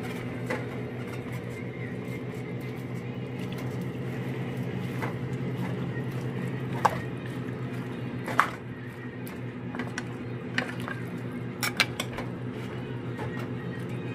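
A metal ladle stirring pork and mustard greens in a stainless steel pan, with a few sharp clinks against the pan in the second half, over a steady low hum.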